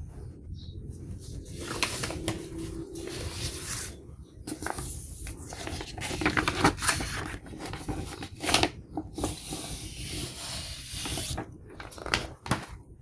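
Paper record inner sleeves rustling and crinkling as they are handled, in stretches of rustle broken by sharp crackles.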